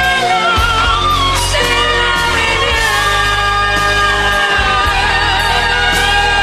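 An 1980s–90s pop-rock song playing, with long, slightly wavering held melody notes over a steady bass line.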